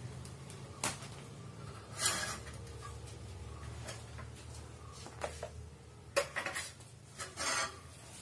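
LED PAR can lights being handled and set down on a concrete floor: scattered knocks and clatters, a cluster of them about six seconds in, over a low steady hum.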